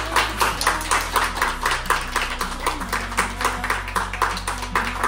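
A small group of people clapping their hands steadily in time, several claps a second, over background music with low held bass notes.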